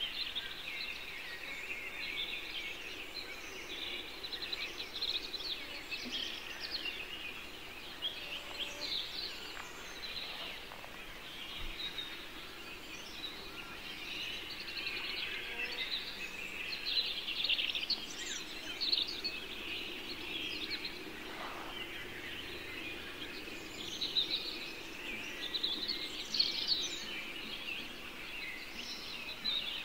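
Outdoor ambience of many birds chirping and singing at once, a busy overlapping chorus over a faint steady background noise.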